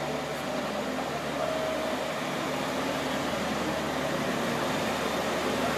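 Kiha 47 diesel railcar's engine running steadily as the train starts pulling out, heard from inside the car, growing a little louder toward the end.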